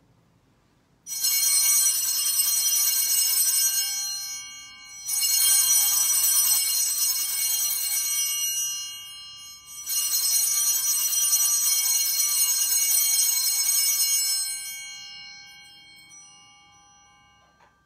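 Altar bells (a set of small hand bells) rung three times at the elevation of the host after the consecration, each ring a bright shimmering jangle that dies away, the third fading slowly over several seconds.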